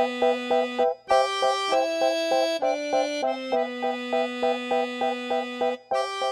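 Background instrumental music: a held bass note under chords that pulse about four times a second, with short breaks about a second in and near the end.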